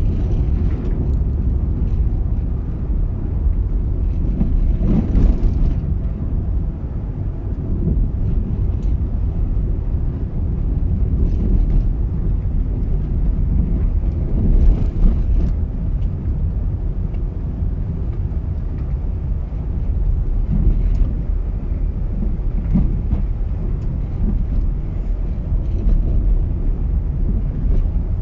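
Car driving along a road: a steady low rumble of engine and tyres, with a few brief bumps.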